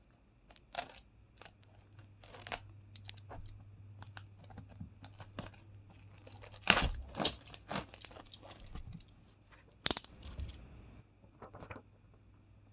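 Packaging being torn open and handled: a run of tearing and crinkling with sharp snaps, loudest about seven and ten seconds in.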